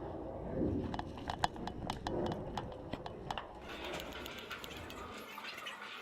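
Airsoft guns firing single semi-automatic shots: about a dozen sharp, irregular cracks in the first half, then a steady hiss of rustling takes over.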